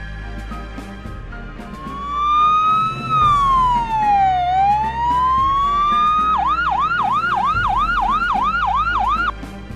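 Ambulance siren: a slow wail that rises, falls and rises again, then switches a little past halfway to a fast yelp of about four sweeps a second, which stops shortly before the end. Background music plays underneath.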